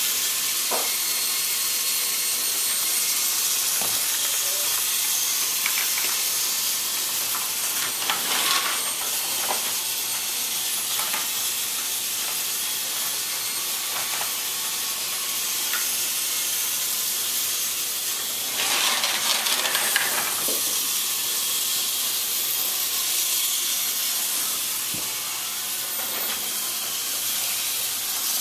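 Steady high-pitched hiss, with a few faint clicks and two brief louder rustles about eight and nineteen seconds in.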